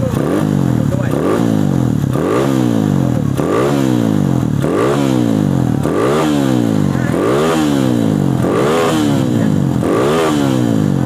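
Kawasaki D-Tracker's single-cylinder engine revved in short throttle blips, about one every second and a quarter, each rising and dropping back to idle. It exhausts through its stock muffler with the insides hollowed out, giving a bassy note.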